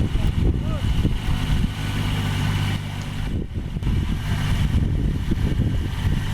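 Kubota DC-35 combine harvester's diesel engine running, its note holding steady for a second or so near the middle.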